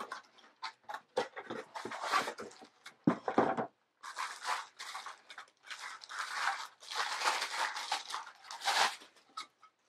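Unboxing noise: a cardboard box being pulled open and a clear acrylic makeup organizer handled out of its packaging. It comes as a run of rustling, crinkling and scraping bursts, busiest in the second half.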